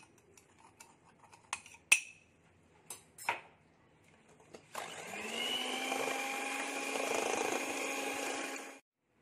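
A few light clicks, then an electric hand mixer switched on about halfway through. Its motor winds up to a steady whine as the beaters whisk sugar into beaten eggs, then stops suddenly near the end.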